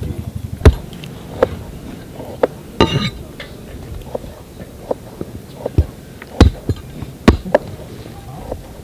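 Heavy cleaver chopping goat legs on a wooden log block: about ten sharp chops at an uneven pace, the loudest near the start.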